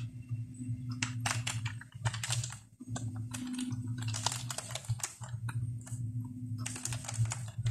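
Typing on a computer keyboard: three quick runs of keystrokes with short pauses between them, over a low steady hum.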